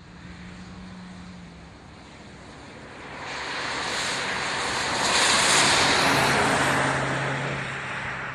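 A car driving past, its tyre and road noise swelling to a peak about five to six seconds in and then easing off, with a faint engine tone underneath.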